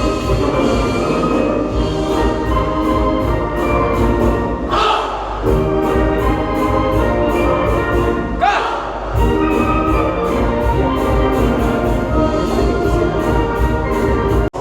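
Music with a steady beat and full, orchestra-like sustained chords, with two brief swells about five and eight and a half seconds in.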